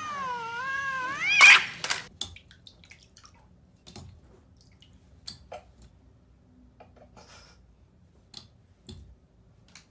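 A domestic cat's drawn-out yowl that wavers up and down in pitch, then climbs into a loud, harsh burst about a second and a half in. After it come only faint scattered taps and drips.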